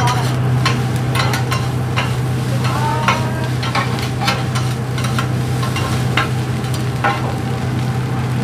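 Metal spatulas scraping and tapping on a steel flat-top griddle as fried rice is stir-fried and sizzles. It comes as a string of short sharp scrapes and clacks over a steady low hum.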